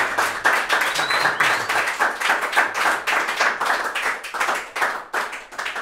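Small audience clapping, the applause thinning and dying away near the end.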